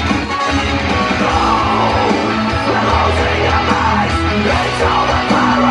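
Loud rock music with shouted singing.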